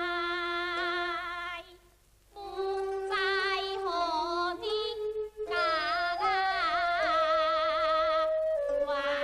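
A woman singing a Teochew opera aria in a high voice, holding long notes with vibrato and ornamented turns, with a short break about two seconds in.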